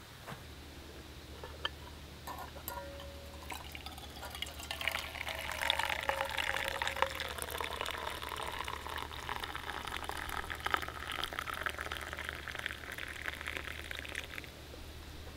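Coffee poured from a small metal camping pot into a metal mug: a steady splashing pour that starts about four seconds in and stops just before the end. A few light clicks come before it.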